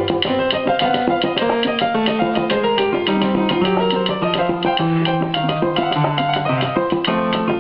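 Instrumental salsa music: piano runs over a walking bass line and steady Latin percussion, with no singing.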